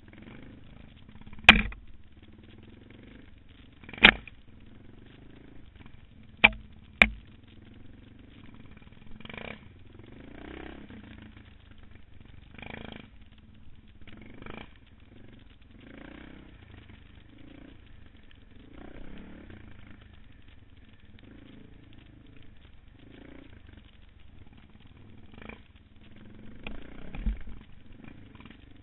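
Suzuki DR650 single-cylinder dual-sport motorcycle running on a muddy trail, with a low uneven rumble. There are four sharp, loud knocks in the first seven seconds and a rougher, louder patch near the end.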